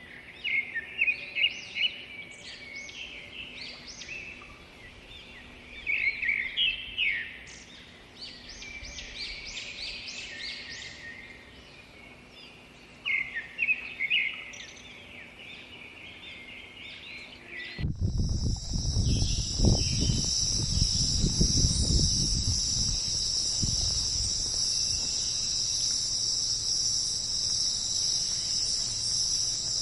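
Birds chirping and calling in short, quick phrases. About eighteen seconds in, this gives way abruptly to a steady, dense, high-pitched insect chorus, with a low rumble underneath for several seconds.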